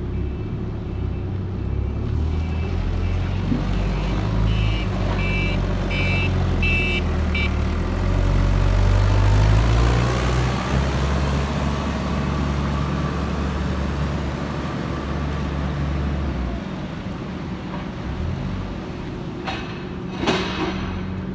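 Diesel engine of a Dieci telehandler running close by, with a reversing alarm beeping steadily for several seconds early on. The engine revs up, rising in pitch, around the middle. A single knock comes near the end.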